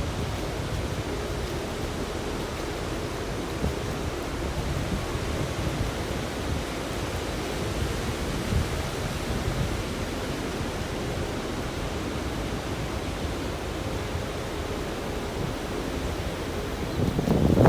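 Steady wash of Pacific Ocean surf, swelling louder near the end.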